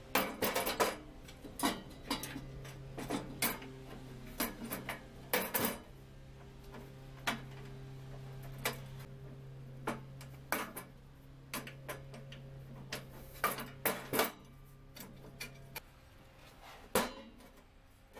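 Irregular metallic clinks and knocks of a hand wrench working bolts on a steel lathe bed, with loose bolts and tools set down on the metal.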